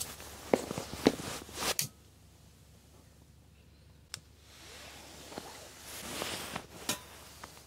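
Split kindling sticks knocking and clattering as they are stacked into a small wood stove, then a single click of a lighter about four seconds in, followed by soft rustling.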